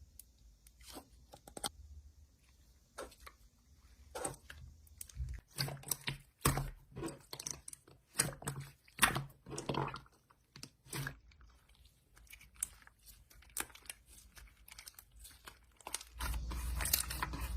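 Irregular crunching and chewing strokes, loudest and thickest in the middle. A steady low hum starts shortly before the end.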